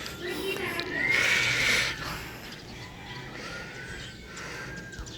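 A flying kite's wind-driven sound maker gives a wavering whistle-like tone that rises and then falls about a second in, over a brief rush of wind. A fainter rising tone follows near the end.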